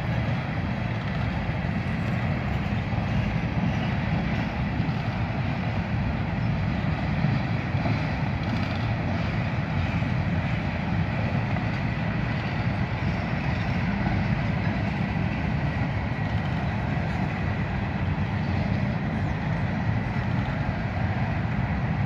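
Covered hopper cars of a grain train rolling past: a steady low rumble of steel wheels on the rails.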